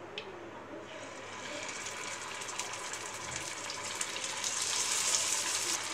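Masala-coated small mackerel frying in hot oil in a pan: a sizzling hiss that starts about a second in and grows louder as more fish are laid in.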